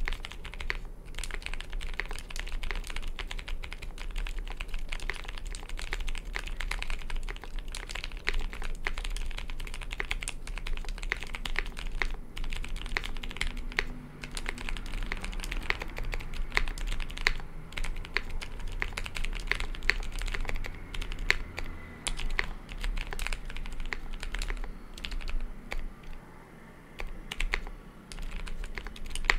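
Typing on a Space80 Apollo mechanical keyboard with Zealios V1 65g tactile switches and GMK Eclipse keycaps: a fast, steady run of keystrokes that briefly thins out near the end.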